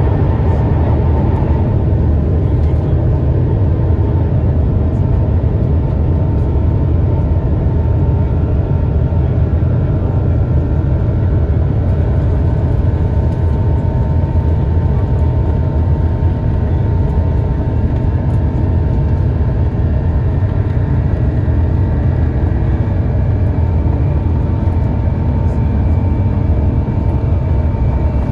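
Jet airliner heard from inside the passenger cabin: a loud, steady low rumble and drone of the engines and airframe, with a few faint steady whining tones above it.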